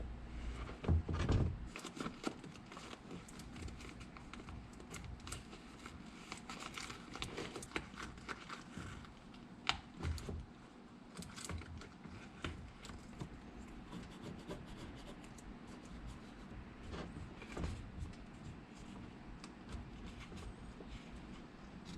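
Hands working on a soccer shoe during a lining repair: irregular small clicks, rubbing and scraping of shoe material and tools, with a few louder knocks about a second in and a sharp click near the middle.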